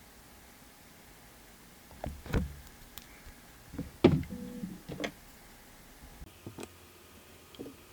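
A few light knocks and clicks from gel polish bottles and nail tools being handled and set down on a table, loudest about two seconds in and again about four to five seconds in, with a couple of fainter taps near the end.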